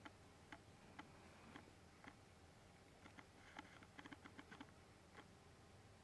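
Near silence with faint, scattered small clicks and taps from handling a small plastic threadlocker bottle and a small metal part, with a quick cluster of them about four seconds in.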